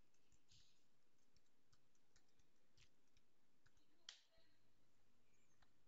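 Faint computer keyboard typing: scattered soft key clicks at an uneven pace, with one sharper click about four seconds in.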